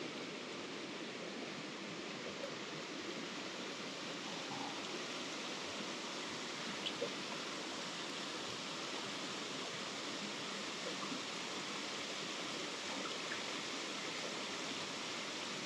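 Mountain stream water running steadily over rocks and through a shallow riffle, an even rushing hiss, with a couple of faint clicks about seven seconds in.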